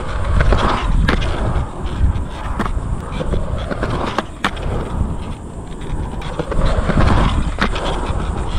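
Skateboard wheels rolling on a concrete skatepark, a rumble that swells as the rider passes close, with several sharp clacks of the board.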